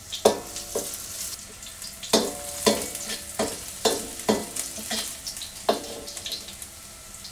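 Minced garlic sizzling in hot oil in a wok while a metal wok ladle scrapes and knocks against the pan about ten times, each stroke ringing briefly.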